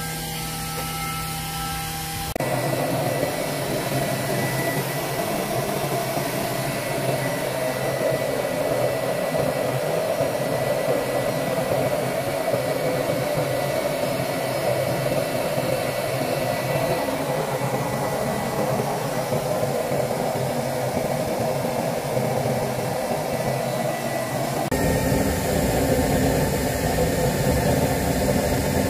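Homemade used-oil stove burning with air forced in through its feed pipe: a steady rushing roar of fire and air. The sound changes abruptly about two seconds in and again a few seconds before the end.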